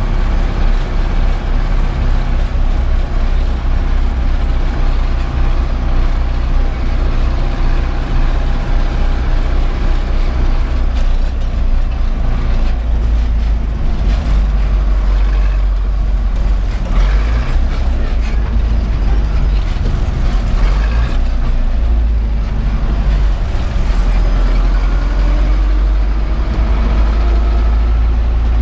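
Zetor 7011 tractor's four-cylinder diesel engine running under way, heard from inside the cab; the engine note changes about a third of the way through.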